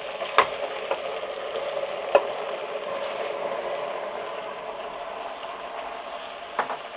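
Raw meat pieces dropped into hot oil with ginger-garlic paste in a pressure cooker, sizzling steadily as they fry. A few sharp knocks come through, about half a second in, just after two seconds and near the end.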